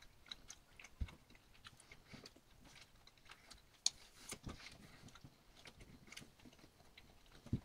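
Faint chewing with the mouth closed: soft, irregularly spaced smacks and clicks.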